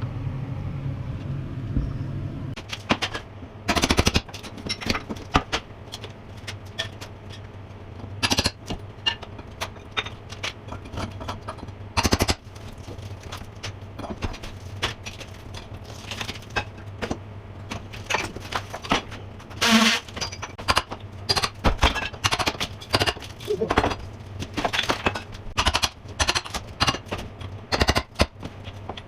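Plaster and wood lath being broken out of a wall: irregular sharp knocks and cracks, some in quick clusters, over a steady low hum.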